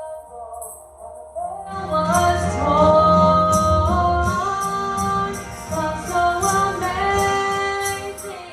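Church worship music: sung voices holding long notes over a band that comes in fully with bass about two seconds in, and a steady high percussion beat.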